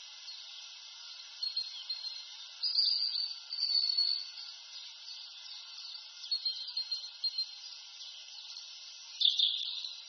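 Small songbirds singing: high, thin whistled notes and short trills in several separate phrases, with the loudest burst near the end.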